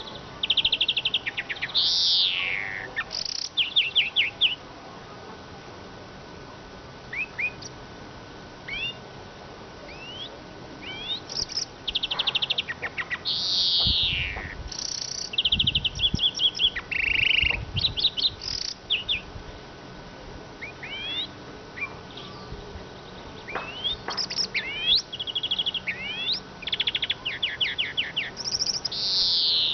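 Eurasian siskin singing a long, varied twittering song: rapid trills, short rising chirps and several long downward-sliding notes. A few low thumps come about halfway through.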